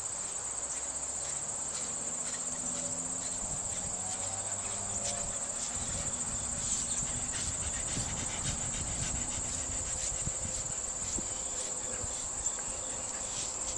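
Crickets calling in a steady, high-pitched chorus, with a faint scratchy stroke now and then.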